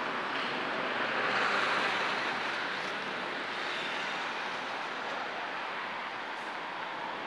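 Steady rumble and hiss of vehicles and site machinery, swelling a little about a second in, then easing off.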